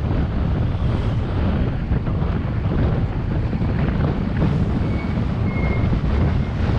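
Wind buffeting the microphone while riding along a road: a loud, steady low rumble mixed with the travel noise of the moving vehicle.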